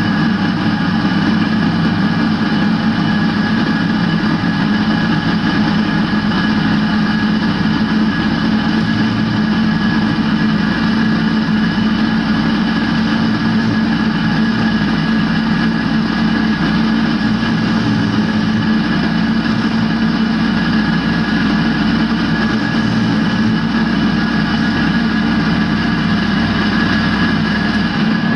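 Valve refacing machine running steadily, its grinding wheel refacing the face of a motorcycle cylinder-head valve.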